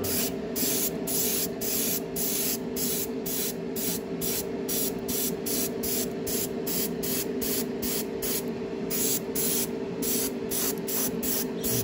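Iwata Neo dual-action airbrush spraying in short, rapid spurts of hiss, about three a second, with a steady hum underneath.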